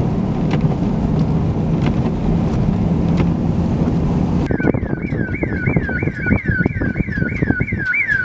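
Wind rushing and buffeting over a low steady vehicle rumble. About halfway through it changes abruptly to an electronic siren warbling quickly up and down, about three times a second, over crackly wind buffeting.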